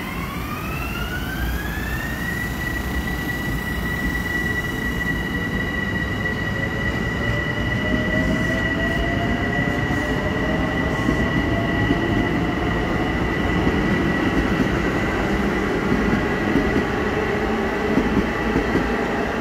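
M7 electric multiple-unit train accelerating. Its electric motor whine rises in pitch over the first two seconds, then holds a steady high tone while a lower tone keeps climbing slowly. Wheel and rail rumble grows slightly louder toward the end.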